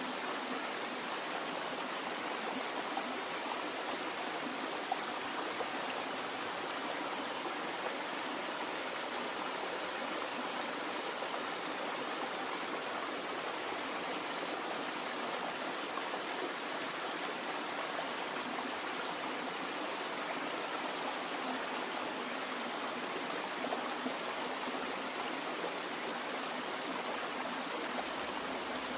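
Running water flowing steadily, an even, unbroken rush like a stream.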